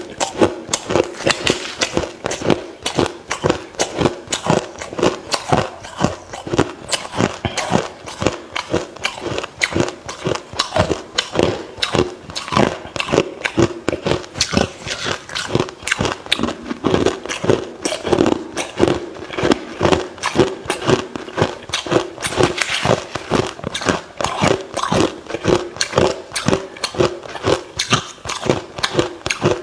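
Close-up ice eating: crushed hard ice bitten and chewed, giving rapid, repeated crunches several times a second.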